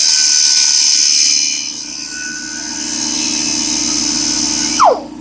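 Air-powered die grinder running free at high speed, a loud hissing whine, released a little before the end and spinning down with a quick falling pitch. The air compressor's pump runs steadily underneath, keeping up with the tool's air use.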